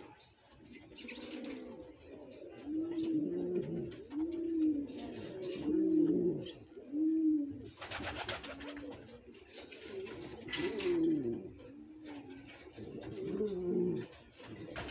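A male domestic pigeon bow-cooing in display, giving repeated low, rolling coos about once a second while turning in circles. Two short bursts of rustling noise come about 8 and 10.5 seconds in.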